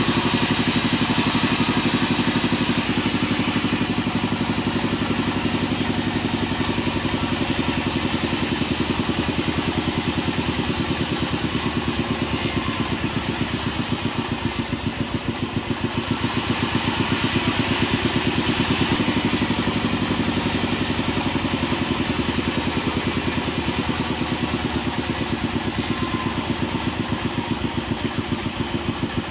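Band sawmill running steadily, a machine drone with a fast, even pulse, as it saws mahogany. The level dips briefly about a quarter of a minute in and again near the end.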